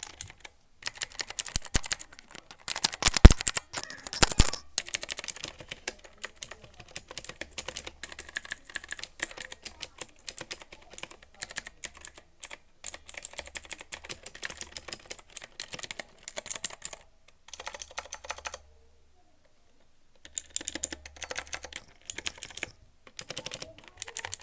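Typing on an Ajazz AK33 mechanical keyboard with Zorro blue switches: fast runs of sharp key clicks, heaviest a few seconds in, with a pause of about two seconds near the end.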